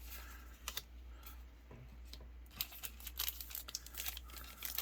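Faint clicks, taps and light rustling of trading cards being handled and flipped through, busier in the second half.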